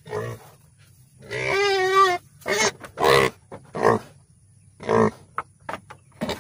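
A pig grunting in its pen: a string of short grunts with one longer, drawn-out call about a second and a half in.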